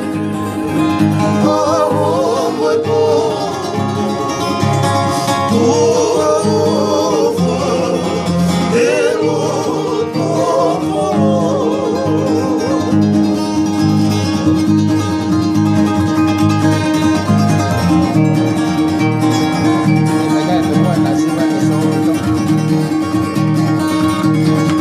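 Acoustic guitars and a ukulele strummed together in a steady rhythm, with men singing along; about eleven seconds in the singing stops and the strummed chords carry on alone.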